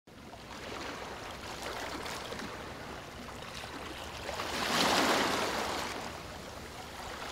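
Water rushing in a steady wash that swells to a louder surge about five seconds in and then falls back.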